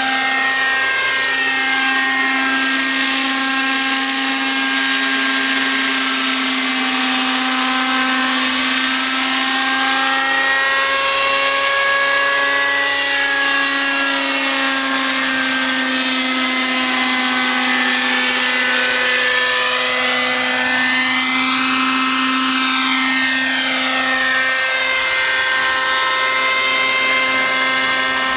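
Radio-controlled MD 500 scale model helicopter in flight: a loud, steady high-pitched whine of motor and rotor blades that swirls and shifts in tone as the model moves back and forth overhead.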